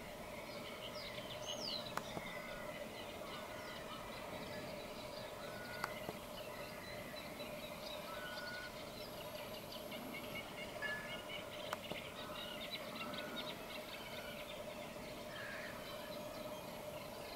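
Marsh birds chirping and calling throughout, over a steady low hum, with a few sharp clicks.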